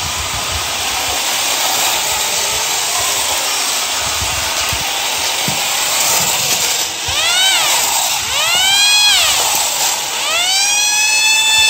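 Battery-operated tin police motorcycle toy running, its motor and gears whirring with a hiss; from about seven seconds in its siren wails, two short rising-and-falling sweeps and then a longer rise that holds high near the end.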